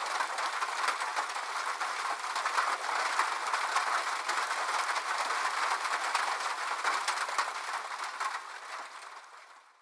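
Rain falling on a roof: a dense, steady patter of countless drops, fading out over the last second or so.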